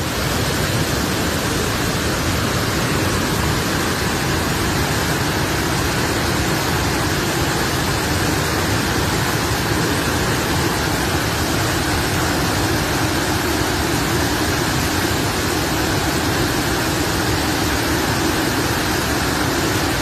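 Flash-flood torrent of muddy water rushing over rocks in a waterfall stream: a loud, steady rush of water.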